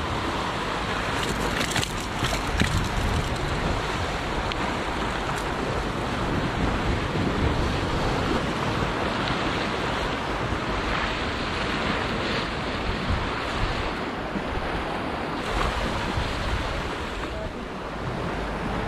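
Sea surf washing and breaking over shoreline rocks, a steady rush of water, with wind buffeting the microphone.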